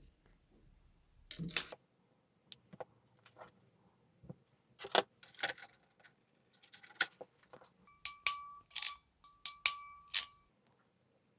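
Sharp clicks and clatter of small hard objects being handled, some ringing briefly. Near the end a steady high tone sounds twice, about a second each time.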